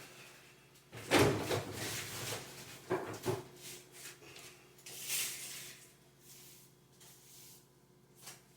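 Handling knocks and thumps: a loud thump about a second in, two short knocks around three seconds, and a brief hiss a little after five seconds.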